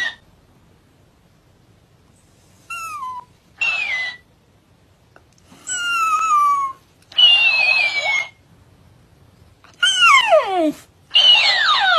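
Shiba Inu dog crying out in six short, high-pitched yelps, each falling in pitch, coming in three pairs with the second of each pair rougher and shriller.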